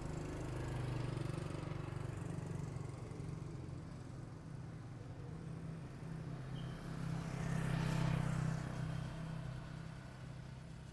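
Road traffic on a city street: a steady low engine hum, with a vehicle passing close by about eight seconds in, its sound swelling and then fading.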